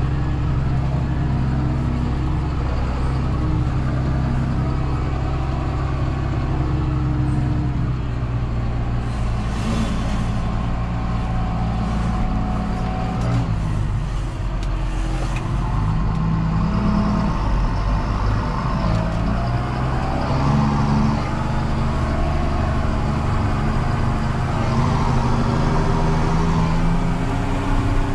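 John Deere 6930 tractor's six-cylinder diesel engine running steadily while pulling a Väderstad Cultus 350 cultivator, its engine note shifting in pitch about halfway through.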